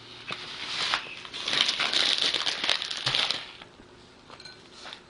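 Plastic poly pellets being poured into a tights sack lined inside a tall glass: a dense pattering rattle of many small pellets, heaviest from about one to three and a half seconds in, with a few scattered clicks before and after.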